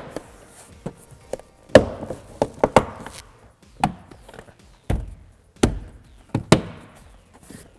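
Plastic door trim panel retaining clips snapping into the door as the panel is pushed on by hand: about a dozen sharp snaps and thumps at irregular intervals, each one a clip locking into place.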